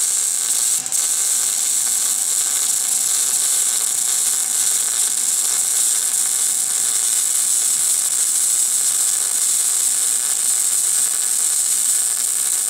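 MIG welder laying a continuous bead around a steel exhaust pipe joint: a steady, high hiss that stutters briefly about a second in.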